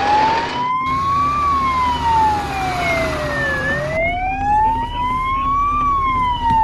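Fire truck siren wailing: a slow rising and falling wail, climbing for about two seconds and dropping for about two, going through the cycle twice, over a steady low rumble.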